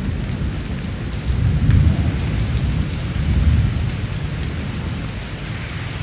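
Steady rain falling, with low rolling thunder that swells twice, about a second and a half in and again around three and a half seconds.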